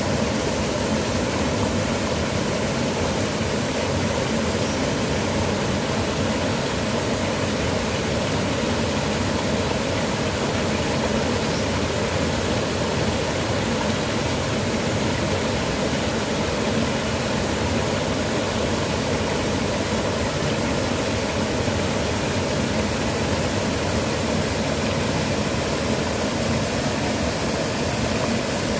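Small waterfall pouring into a pool: a steady, unbroken rush of water.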